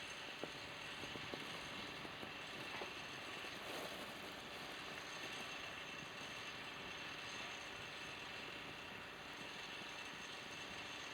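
Steady machinery hum with a faint high whine, and a few faint clicks in the first second and a half.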